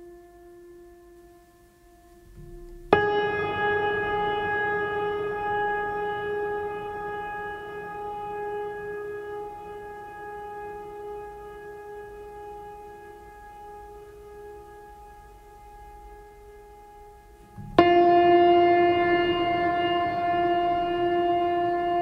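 Background music of long held ringing tones: a chord comes in suddenly about three seconds in and slowly fades, then a second chord starts sharply near the end.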